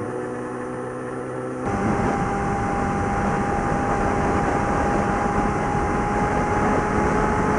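Suzuki GSX650F's inline-four engine running steadily at highway cruising speed, with wind rushing past. About a second and a half in, the sound jumps abruptly louder and the wind rush thickens.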